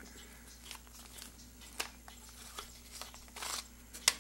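Small handling noises as a drill bit is taken from its plastic storage tube: scattered light clicks and a brief plastic rustle about three and a half seconds in, then one sharp metallic click near the end as the bit is set against a steel vernier caliper.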